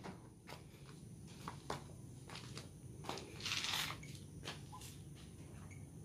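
Faint scattered clicks and a brief scuffing rustle about three and a half seconds in, from a phone being handled and carried, over a low steady hum.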